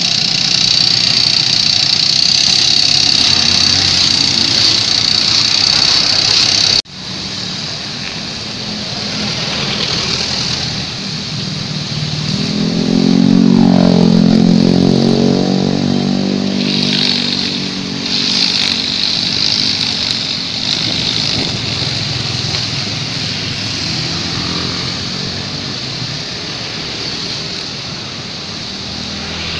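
Honda GX four-stroke backpack string trimmers running at cutting speed, the nylon line whining through the grass over the engines' hum. The sound drops abruptly about seven seconds in, then an engine swells to its loudest near the middle before the high line whine returns.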